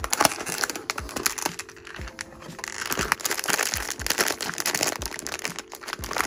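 Foil blind bag crinkling and crackling as it is pulled out of a cardboard blind box and handled, with a dense run of crackles in the middle.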